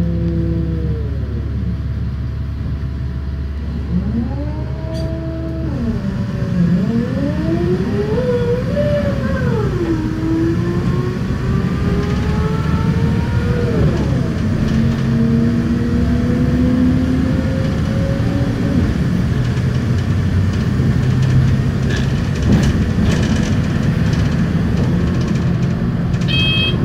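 Heard from inside a moving vehicle: a steady rumble, with a motor whine that rises in pitch as it speeds up, drops and climbs again several times. A short high tone sounds near the end.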